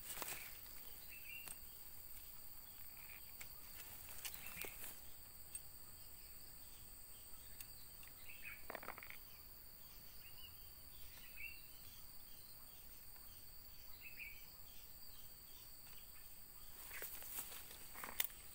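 Steady high-pitched drone of insects in riverside vegetation, with short chirps now and then and a few faint clicks or rustles.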